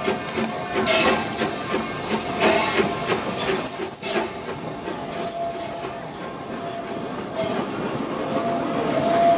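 Narrow-gauge steam locomotive and its open passenger cars rolling past on a tight curve: a rhythmic beat from the locomotive at first, then a high, steady wheel squeal from the curve for a few seconds as the cars go by.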